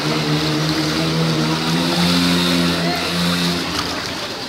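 A motor vehicle engine running with a steady hum over the hiss of heavy rain and floodwater; the hum stops near the end.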